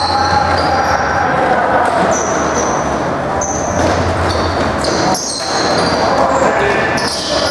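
Box lacrosse play on an arena floor: repeated short high-pitched shoe squeaks, a ball bouncing, and players' voices calling out over a steady low hum.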